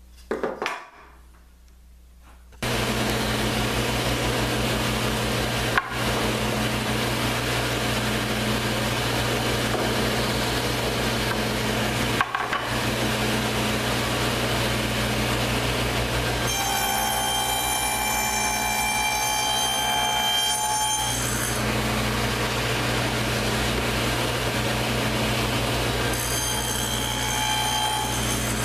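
Table saw running steadily with a constant hum, a little way in after a few knocks of handling. It cuts a plywood drawer part on the sliding table, with a ringing whine from the blade for about four seconds past the halfway point and again briefly near the end. These are the cuts for a drawer lock joint.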